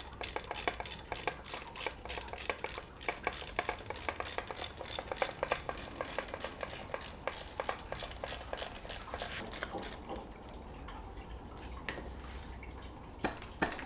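Ratchet wrench clicking rapidly, about four clicks a second, as a bolt holding an outboard motor's gearcase is undone. The clicking stops about ten seconds in and picks up again near the end.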